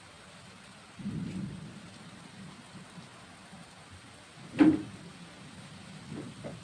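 Rain falling steadily. A low thump comes about a second in, a louder, sharper thump a little past four and a half seconds, and two fainter knocks near the end.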